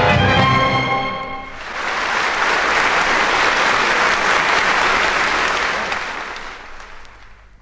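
The final held chord of a song's band accompaniment ends about a second and a half in, followed by audience applause that swells and then fades out near the end.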